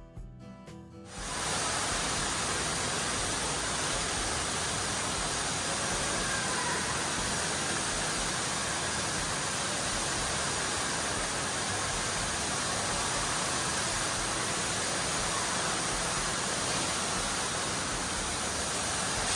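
Indoor waterfall rushing steadily, cutting in abruptly about a second in.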